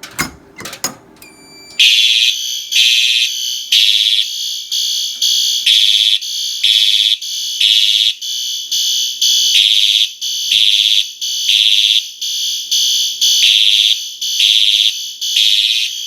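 Fire alarm horns sounding in march-time code, a loud, high tone pulsing rapidly on and off, set off by a manual pull station. A few clicks come just before the horns start, just under two seconds in.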